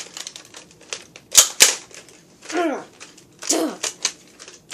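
Two sharp plastic clacks about a quarter second apart from a Nerf Maverick toy dart blaster being worked by hand.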